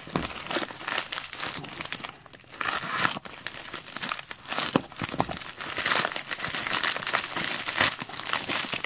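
A white packing bag crinkling and rustling in the hands as it is squeezed and pulled open, in a dense run of irregular crackles.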